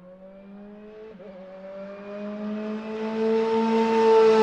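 Car engine accelerating, rising slowly in pitch and growing steadily louder to its loudest near the end, with a brief break about a second in.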